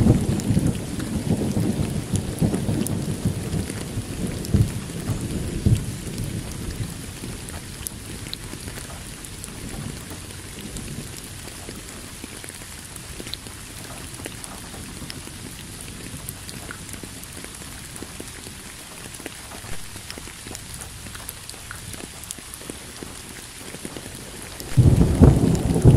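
A steady rushing noise with a low rumble, heavier in the first few seconds and again from about a second before the end, with faint scattered ticks.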